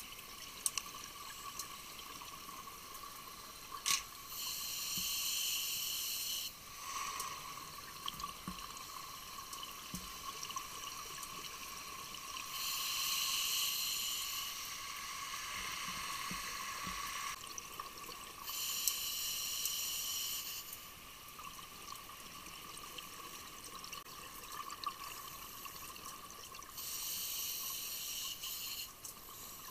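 Scuba diver breathing through a regulator underwater: four exhalations, each a rush of bubbles lasting about two seconds, coming roughly every seven seconds, over a steady faint hum.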